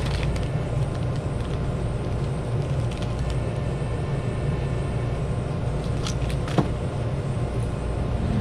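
A steady low rumble, with a single sharp click about six and a half seconds in.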